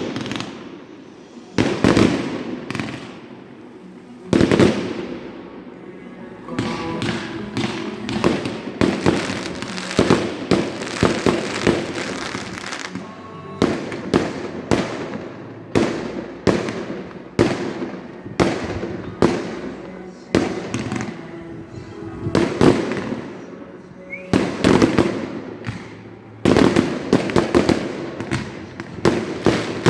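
Fireworks going off in a steady string of sharp bangs, often one or two a second, each trailing off in an echo, with a few louder clusters of bangs.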